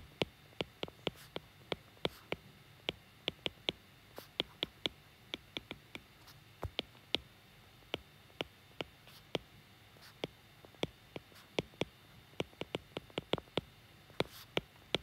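Stylus tip tapping and clicking on a tablet's glass screen while handwriting: a long run of sharp, irregular taps, roughly three a second.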